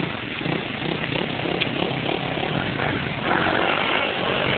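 Dirt bike engine running and getting louder about three seconds in as the bike comes closer.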